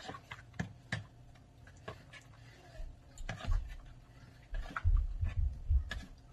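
A plastic spoon stirring a thick creamy fruit salad in a plastic mixing bowl: scattered light ticks and scrapes of spoon on bowl, with a run of dull low thumps in the second half.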